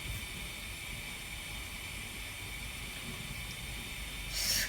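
Steady faint hiss of a lidded pan of gnocchi in tomato sauce simmering on low heat, with a brief louder rush of hiss near the end.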